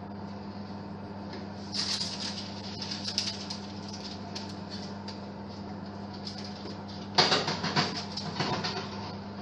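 Metal oven rack and door being handled: clattery scraping as the wire rack is pulled out, then again about seven seconds in as a potato is set on it, over a steady low hum.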